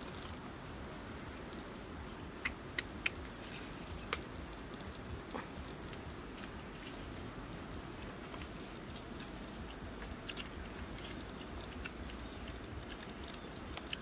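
Steady high-pitched drone of insects, with a few sharp clicks from boiled eggshells being cracked and peeled by hand, bunched between about two and a half and four seconds in.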